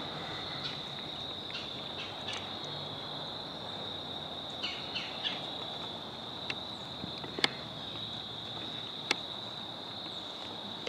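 Crickets singing in one steady high trill, with a few short chirps about halfway through and several single sharp clicks in the second half.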